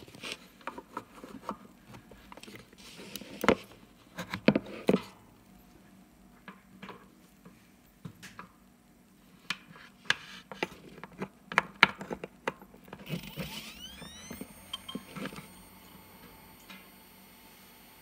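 Clicks and knocks of the hard drive and its cable connectors being handled and plugged in. About 13 seconds in, the Maxtor Fireball 3 40GB 5400 RPM IDE hard drive spins up with a rising whine that settles into a steady high-pitched whine, with a few soft clicks just after.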